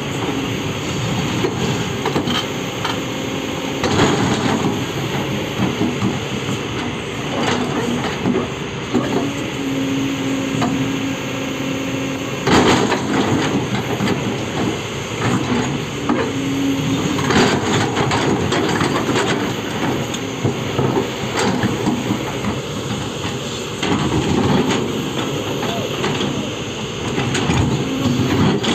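Heavy machinery working: an engine running under continuous noise, with repeated metallic clanks and knocks and a steady tone that comes and goes several times.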